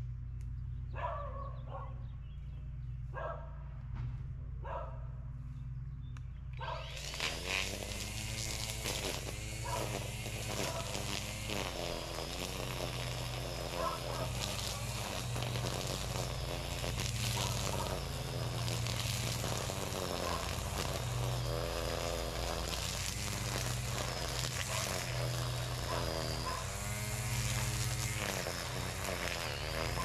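Gas string trimmer (weed eater) idling, then opened up about seven seconds in and cutting weeds, its engine pitch rising and falling in repeated swells as the throttle is worked.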